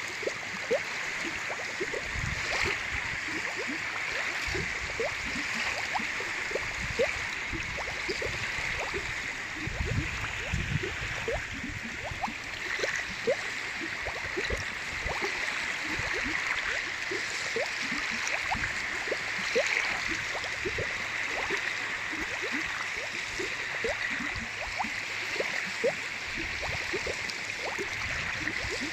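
Small lake waves lapping and gurgling: a steady wash of water with many small plops and bubbling notes, and now and then a low surge.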